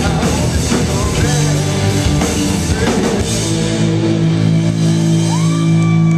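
Live rock band playing loud through a club PA, with electric guitar, bass and a full drum kit. About three to four seconds in the drum and cymbal hits stop, and the guitar and bass ring on a held chord, as at the close of a song.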